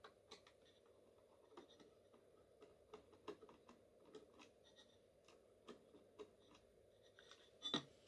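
Faint clicks and light scraping of a screwdriver turning a small screw in the front of an aluminium PC case, with one louder click near the end.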